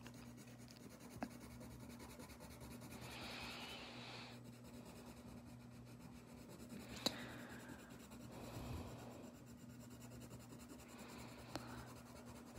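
Coloured pencil scratching faintly on paper in uneven strokes, with a sharp tick about a second in and another about seven seconds in.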